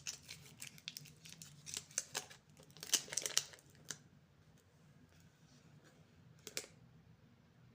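Plastic candy wrapper crinkling and tearing as it is opened: a flurry of crackles for the first four seconds, then a single short crinkle near the end.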